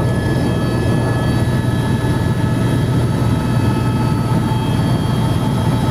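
Helicopter cabin noise: a loud, steady deep drone from the rotor and engine, with several constant high-pitched tones riding over it.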